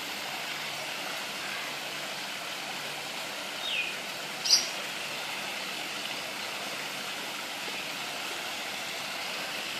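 Steady rush of running water. About four seconds in come two short high chirps, the second sharper and louder.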